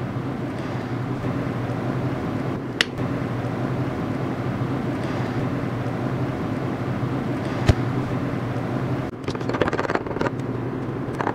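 Steady low mechanical hum with two single clicks. About nine seconds in, a metal knife starts scraping and clinking quickly against a glass Pyrex measuring cup as black colorant is stirred into liquid soft plastic.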